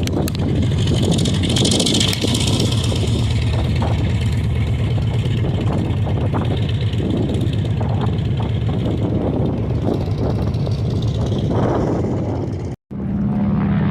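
A large engine running steadily and loudly, a low rumble with a hiss on top. It cuts off abruptly about a second before the end.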